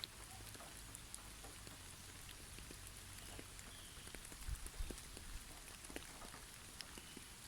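Forest snowfall ambience: a steady soft hiss with many scattered light ticks and patters of snow falling through the branches, and faint brief bird chirps twice. A few soft low thumps come a little past halfway.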